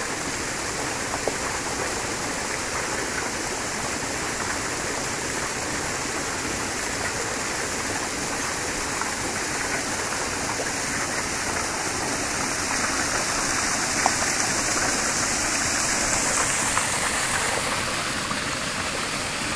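Steady rush of splashing water pouring from a wooden log flume into a stream.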